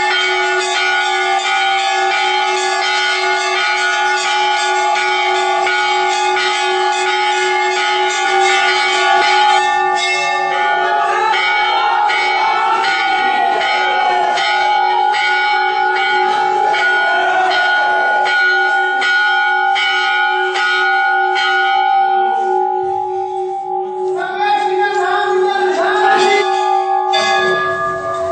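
Temple bells rung rapidly and continuously, their strikes blending into a sustained ringing. Voices chanting or calling rise over the bells from about a third of the way in and again near the end.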